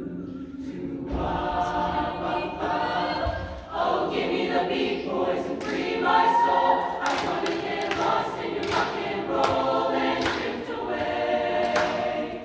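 Mixed-voice high school show choir singing together in sustained chords, with a brief break about four seconds in.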